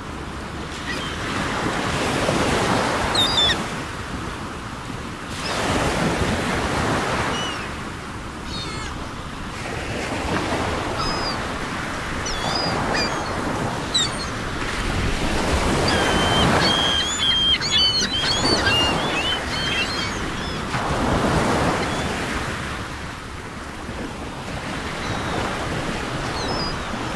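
Ocean waves washing in and drawing back, swelling and fading about every four to five seconds. A few faint bird chirps come through near the middle.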